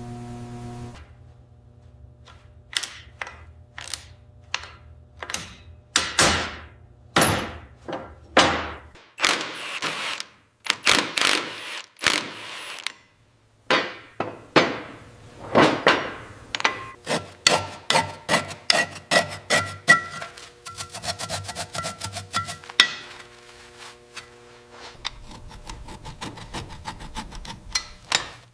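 Hammer blows during an engine teardown: a long irregular series of sharp strikes, many with a short ringing tail, and a quick run of lighter taps about two-thirds through.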